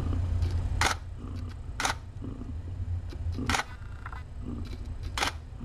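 DSLR camera shutter firing four single frames, each a short sharp click, spaced one to two seconds apart.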